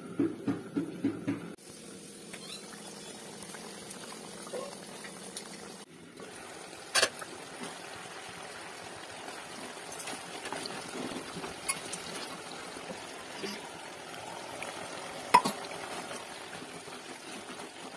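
Chicken curry bubbling and simmering in a clay pot, a steady soft sizzle. There is a quick rattling clatter in the first second or so, and two sharp clinks against the pot, one about seven seconds in and one a few seconds before the end.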